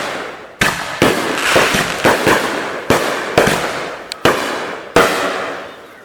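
Fireworks going off in quick succession: about eight sharp bangs over five seconds, each trailing off in a hiss.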